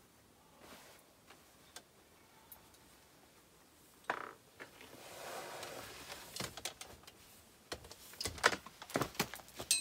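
Boots stepping down a telescoping aluminium ladder from a rooftop tent: irregular knocks and clinks, louder toward the end, ending in a short metallic ring. A sharp click and a brief rustle of clothing come before the steps.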